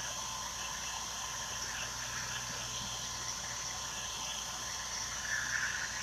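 Steady low hiss with a faint hum of background room noise, and a brief faint rustle about five seconds in.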